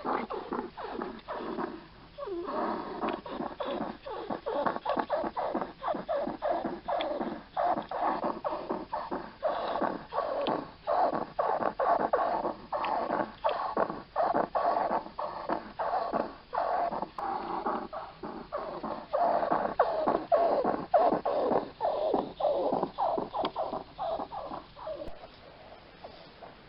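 Hedgehog's noisy, rasping breathing, a quick regular rattle of about three breaths a second that fades out near the end. The noisy breathing is put down to scarring on its lungs from a previous respiratory infection or lungworm.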